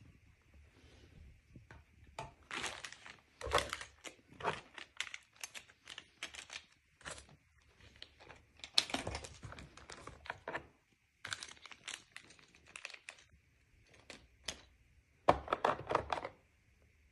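Plastic packaging crinkling and rustling in irregular bursts as accessories are handled, with a few light knocks.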